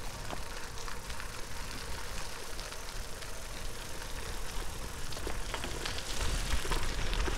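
Gravel bike tyres rolling over a gravel towpath: a steady crackling hiss with scattered small clicks, over a low rumble of wind on the microphone that grows near the end.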